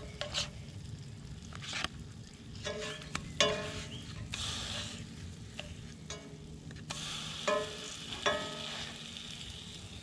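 Donuts sizzling in butter in a cast iron skillet, with a spatula scraping and clicking against the pan several times as they are flipped and lifted out. The sizzle swells about four seconds in and again from about seven seconds on.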